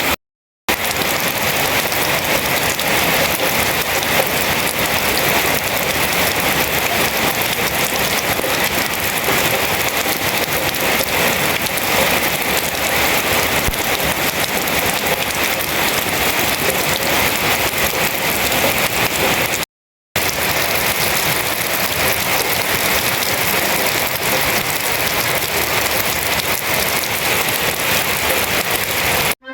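Rain falling steadily in a dense, even hiss. It cuts out to silence twice, briefly, once near the start and once about two-thirds of the way through.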